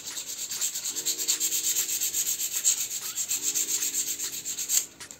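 Fine 220-grit sandpaper rubbed quickly back and forth by hand over a bundle of varnished wooden cage stalks, a fast, even scratching rhythm that stops near the end.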